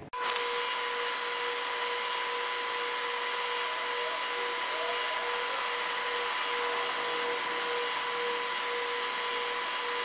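A steady machine whir: an even hiss with a constant high whine, starting abruptly and holding unchanged throughout.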